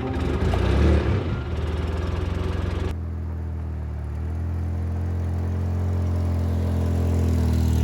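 UTV engine running as the vehicle drives along. About three seconds in the sound changes abruptly to a steadier engine note that grows gradually louder.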